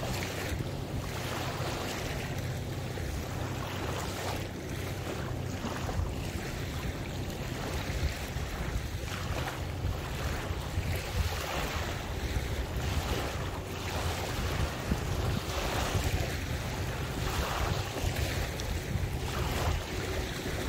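Waterway water lapping and sloshing in small irregular surges, with wind buffeting the microphone. A faint low steady hum runs underneath.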